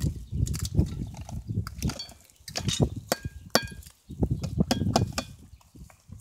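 Dry dog kibble clinking and clattering as it is tipped into a bowl, over the rustle of plastic bags as a litter of puppies eats from them.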